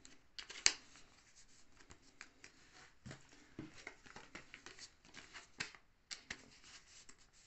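Pokémon trading cards and a foil wrapper being handled: light crinkling and rustling with scattered soft clicks, the sharpest less than a second in.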